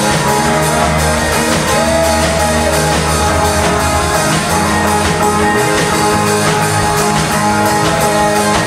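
A rock band playing an instrumental passage without singing: guitar over bass and a drum kit, with a lead line bending in pitch.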